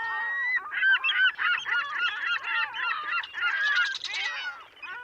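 Seagulls calling: a flock of overlapping short cries that bend up and down in pitch, with one longer held cry at the start.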